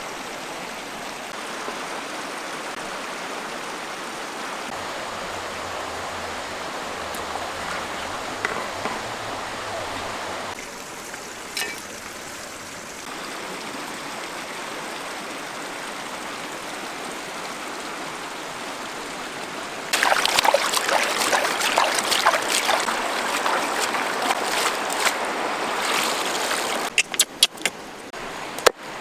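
Steady rush of running water, with a louder, rougher stretch from about two-thirds in and a few sharp clicks near the end.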